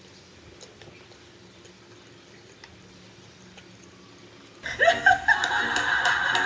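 Quiet room tone with a few faint clicks, then, about three-quarters of the way through, loud voices from a Korean TV show cut in suddenly.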